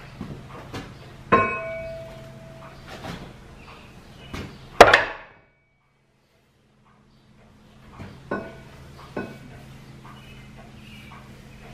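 Metal clanks and knocks as a heavy steel lathe faceplate is handled at the lathe spindle; one strike about a second in rings with a clear metallic tone, and the loudest clank comes about five seconds in. The sound cuts out abruptly for about two seconds, then a steady low hum returns with two more knocks.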